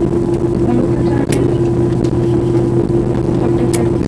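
Cabin noise of a Boeing 787-8 airliner rolling on the ground: the GEnx engines and airframe give a steady hum with a constant tone over a low rumble. Two short clicks come through, about a second in and near the end.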